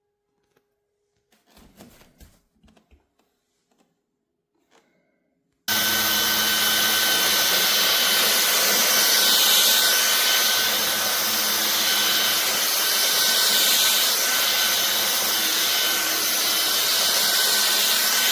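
A few faint handling clicks, then about five and a half seconds in a MONSGA MV3 cordless stick vacuum switches on abruptly and runs steadily, with a thin high whine over the motor's rush of air.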